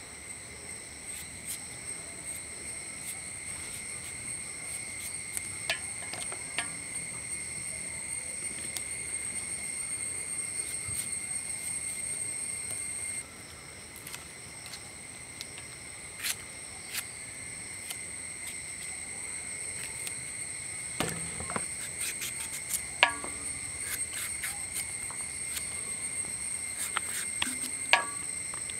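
Insects trill steadily and high in the background. Short, scattered clicks come through over the trill, more often in the second half, from a broad knife slicing through a carrot and a gourd held in the hand.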